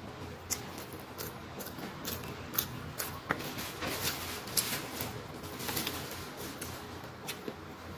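Irregular crinkles and small clicks of a paper food wrapper as fingers scoop and press rice on it, sounding many times in short, uneven bursts.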